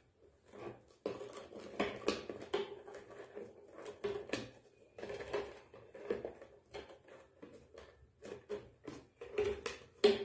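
Paper tubes rustling, scraping and tapping against the upright paper-tube stakes and the wooden board of a basket-weaving jig as hands weave a flat rectangular base, in irregular light clicks and scrapes.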